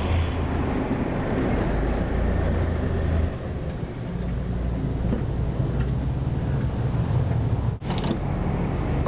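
A car engine running close by, with traffic noise: a steady low rumble that drops a little about three seconds in.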